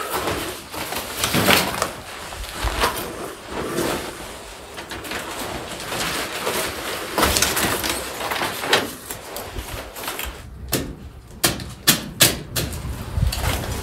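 Rustling and crackling of a bundle of leafy branches being hauled through a rocky passage, with scuffs and knocks of feet and hands on rock. Near the end comes a quick run of sharp clicks and snaps.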